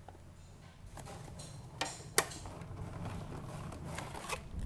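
A cardboard toy box being opened and a clear plastic blister tray handled: low rustling and handling noise with a few sharp clicks, the loudest about two seconds in.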